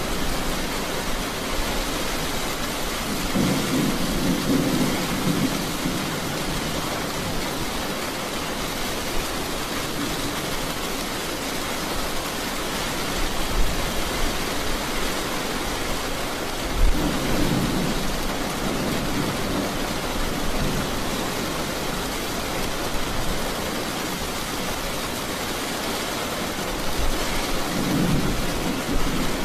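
Steady rain with rolling thunder: three low rumbles, about four seconds in, a little past halfway, and again near the end.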